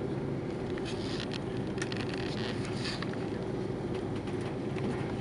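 Steady drone of engine and airflow noise in the passenger cabin of an Airbus A330-300, with a few light clicks and rustles between about one and three seconds in.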